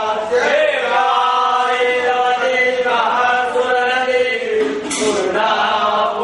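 Male voices chanting a Hindu mantra in long, held notes.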